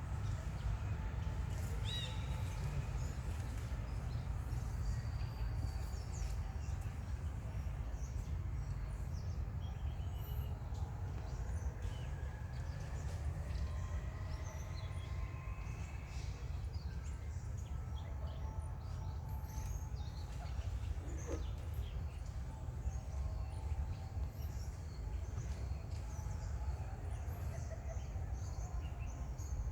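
Outdoor ambience: a steady low rumble with scattered faint chirps and short calls from birds or other small animals, one of them a slow rising whistle around the middle.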